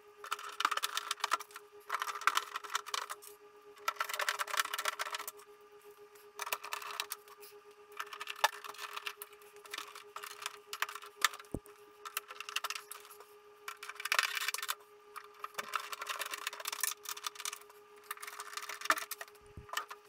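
Hand screwdriver driving screws back into the plastic casing of a portable air conditioner: repeated bursts of rapid clicking, each about a second long, with short pauses between them.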